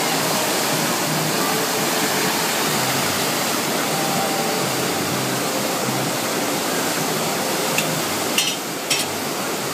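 Steady rush of pumped water pouring over an artificial surf machine's standing wave, with a few sharp knocks near the end.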